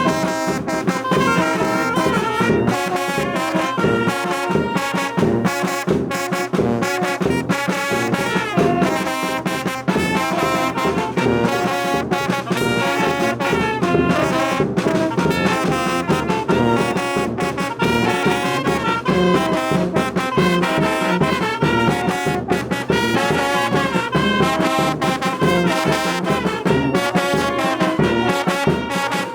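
Brass band (banda de viento) playing a tune: trumpets and trombones in melody and harmony over a steady beat.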